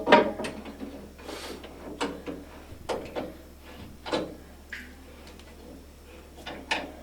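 Socket ratchet turning a bolt: separate metallic clicks and clacks at uneven spacing, roughly one a second.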